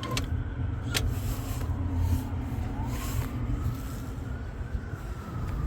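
Emergency vehicle siren wailing slowly, its pitch falling, rising and falling again over a few seconds, heard faintly over a low traffic rumble. A sharp click sounds about a second in.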